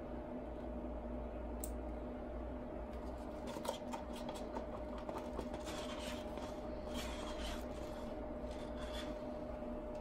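A wooden stirring stick scraping resin out of a paper cup and over the surface: a run of short, irregular scratches and light taps from about three seconds in, over a steady hum.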